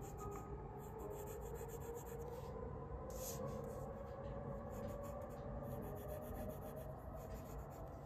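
Pencil drawing on paper: a run of short, irregular scratching strokes of the graphite lead.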